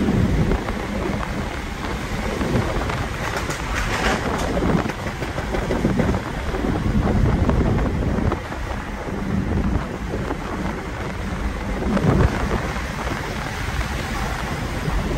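Wind and road noise inside a BMW sedan at highway speed: a steady rushing roar with a heavy low rumble that swells and eases as the wind buffets the microphone.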